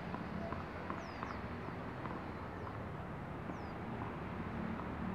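Low, steady outdoor background with a few short, high, falling chirps from a small bird, about four of them spread through the quiet.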